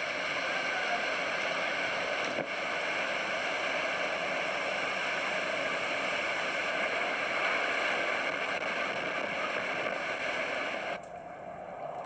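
Typhoon wind and heavy rain: a steady rushing noise that drops and turns quieter near the end.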